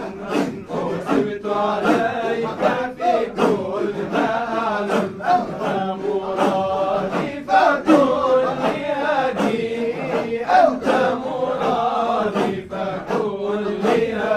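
A group of voices chanting Sufi dhikr together in a Shadhili hadra, a held low drone under shifting melodic lines, with regular sharp rhythmic accents about twice a second.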